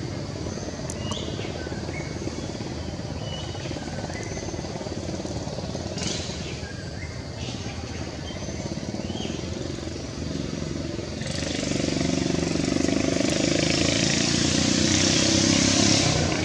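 Motor traffic running steadily in the background, with short high chirps now and then in the first half. About eleven seconds in, a louder vehicle engine sound sets in and holds.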